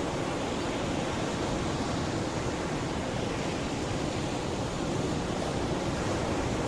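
Mediterranean sea waves washing onto the shore in a steady, continuous wash of surf, without distinct single breakers.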